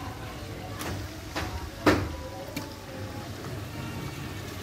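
Raw meat chunks dropped from a bowl into a large aluminium cooking pot of frying onions and tomatoes: four short thuds and knocks, the loudest about two seconds in with a brief ring, over a steady low rumble.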